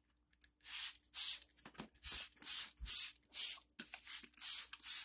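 Trigger spray bottle misting water in a quick series of short, hissing squirts, roughly two a second.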